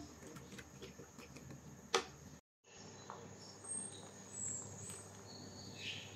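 Faint stirring of crinkle-cut potatoes in a pan of hot water with a wooden spatula, with one sharp knock about two seconds in and a brief cut-out of all sound just after. Faint short high chirps come in during the second half.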